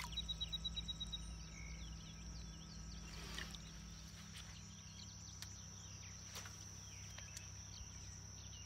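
Faint summer lakeside ambience: a steady high-pitched insect drone, with a quick run of about ten high chirps in the first second and a few faint scattered clicks and chirps.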